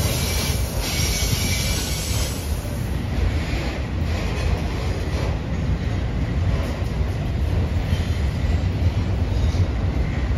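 Freight train rolling past close by: a steady heavy low rumble of cars and wheels on the rails, with a faint high wheel squeal in the first second.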